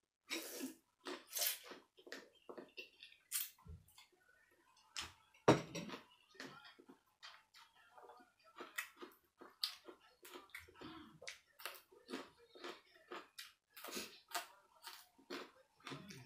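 Wet eating sounds of khanom jeen rice noodles being slurped and chewed by hand: a steady run of short, sharp mouth smacks and clicks, with one louder smack about five and a half seconds in.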